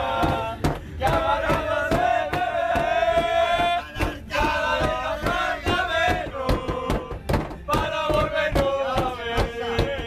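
A group of people chanting and shouting in unison in long, drawn-out calls, one held for about three seconds, with hand claps throughout.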